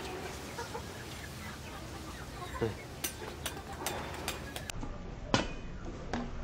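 A cleaver forged from tractor plough-disc steel chops through a luffa gourd resting on a metal post, each stroke ending in a sharp knock. A quick run of light chops comes a few seconds in, then louder single chops near the end.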